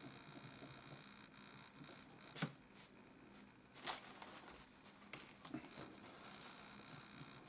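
Faint rustling and rubbing of a cleaning wipe on a laptop's heatsink and board as old thermal paste is wiped off, with two sharp clicks about two and a half and four seconds in.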